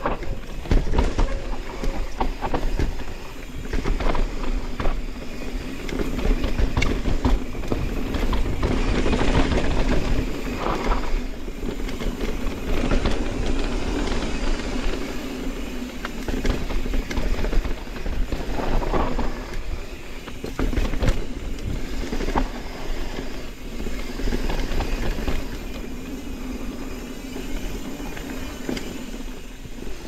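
Mountain bike ridden down a dirt singletrack trail. Wind rushes over the microphone and the tyres roll on dirt, while the bike rattles and knocks over rough ground throughout.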